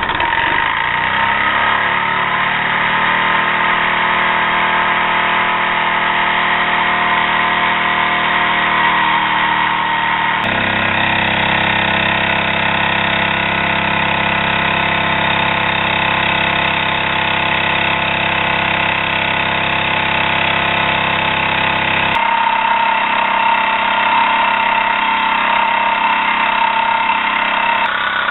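Jensen live steam toy engine running at speed, its flywheel spinning, giving a steady, loud mechanical whir whose pitch rises over the first couple of seconds as it picks up speed and then holds. The tone of the running sound shifts abruptly twice.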